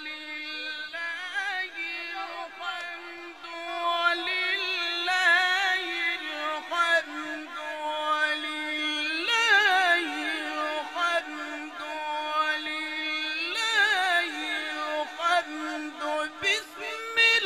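Male qari reciting the Quran in a melodic, sung style, holding long notes decorated with rapid trills and turns. The line climbs to a higher note about nine seconds in, settles back, and rises again near the end.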